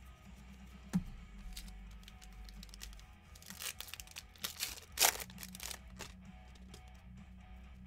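Crinkling and rustling of trading card packaging as cards are handled, a run of brushes and crackles between about three and six seconds in, after a single sharp click about a second in. Faint background music plays underneath.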